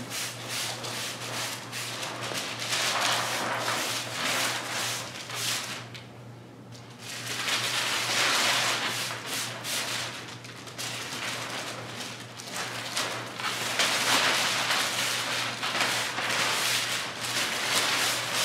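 Clear plastic liner being peeled off architectural window film with a crinkling, crackling rustle, while a trigger spray bottle mists the film's wet adhesive side in short hissing sprays. There is a brief lull about six seconds in.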